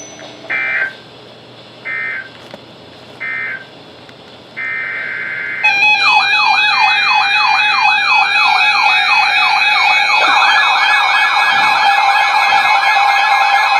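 Emergency Alert System data tones: three short bursts of digital data tone, the end-of-message code, then a longer burst. Then loud layered electronic siren tones sweep up and down over a steady tone, and the sweeps speed up about ten seconds in.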